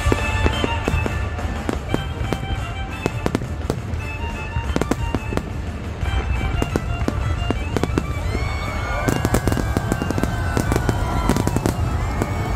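Fireworks going off in quick succession, sharp bangs and crackling over music playing along with the show, with a steady low rumble underneath. From about eight seconds in, several curved whistling glides are heard among the bursts.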